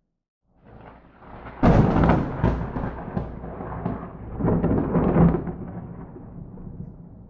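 Thunder from a close lightning strike: after a moment of silence a rumble builds, then a sharp crack about a second and a half in is followed by rolling rumble with further cracks, a second loud swell about five seconds in, and a slow fade.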